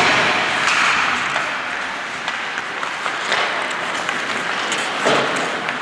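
Applause in an ice hockey rink: a steady patter of clapping, strongest in the first couple of seconds.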